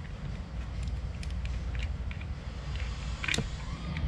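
Small plastic clicks and ticks as the relay board, wiring and plastic cover of a mini water booster pump are handled and pressed back into place, with one sharper click a little past three seconds in. A steady low rumble runs underneath.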